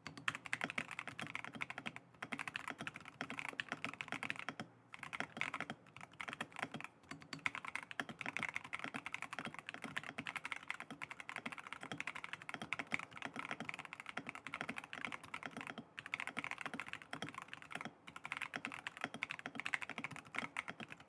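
Continuous fast typing on a Razer BlackWidow V4 75% mechanical keyboard with Razer Orange tactile switches and PBT dye-sub keycaps, in a gasket-mounted, foam-dampened case. The keystrokes come as a dense run of clacks, with a few short pauses between bursts.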